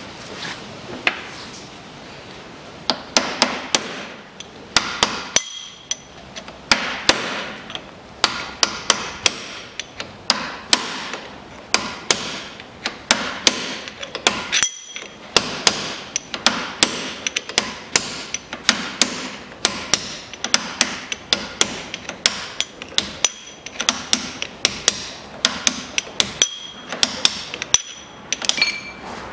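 Hammer blows on a steel drift driving the old seal and bearing outer race out of a rear-axle bearing housing held in a vise. The strikes come two to three a second with a bright metallic ring, with a couple of short pauses.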